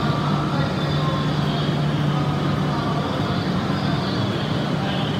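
E6 series Shinkansen train rolling slowly past along the platform: steady running noise with a low hum that drops away about three seconds in.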